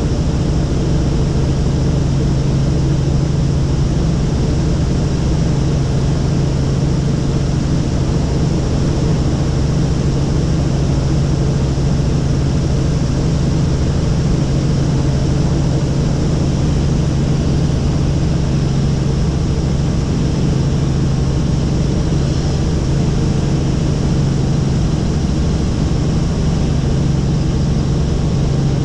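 Helicopter engine and rotor running in steady cruise flight, heard from inside the cabin as an unbroken deep hum and drone at a constant level.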